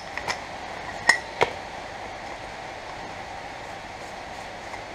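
Three short metallic clinks in the first second and a half, steel on steel, as a tubular hub-nut spanner is fitted onto the hub nut of a Land Rover Series 2a front hub. After that there is only faint handling.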